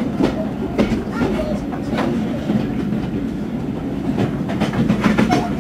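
Heritage railway carriage running along the line, heard from inside the coach: a steady rumble with the wheels clicking irregularly over the rail joints.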